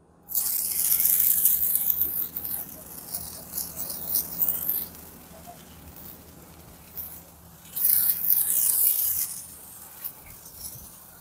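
Hand-held sparklers burning with a high fizzing, crackling hiss. The hiss is strong for the first few seconds, dies down, and swells again briefly about eight seconds in before fading.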